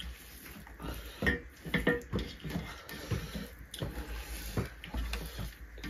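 Eating sounds: wet chewing and lip-smacking, with fingers mixing rice and curry on metal plates. A cluster of louder smacks comes about 1 to 2 seconds in.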